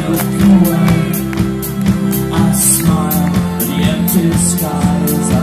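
Live pop-rock band playing an instrumental passage through the PA: electric guitars over a steady bass line and drum beat with cymbals.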